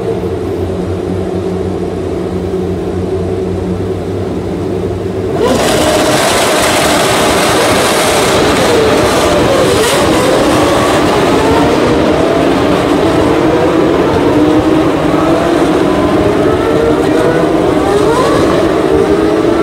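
Single-seater race car engines running with a steady hum. About five and a half seconds in, it jumps to many engines revving together, their overlapping pitches rising and falling.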